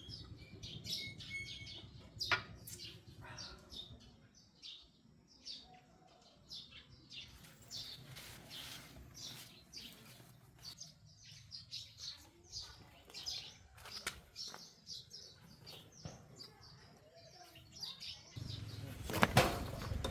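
Small birds chirping in short, repeated calls, fairly faint, with a louder clattering noise near the end.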